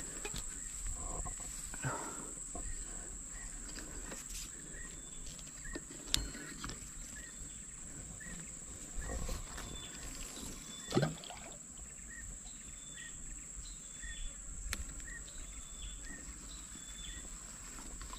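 Forest riverside ambience: a steady high-pitched insect drone, with short faint chirps repeating roughly once a second and a few scattered knocks, the loudest about eleven seconds in.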